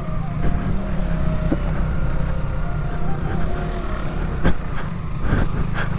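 Motorcycle engine running steadily on a dirt trail, with a dense low rumble and a few sharp knocks.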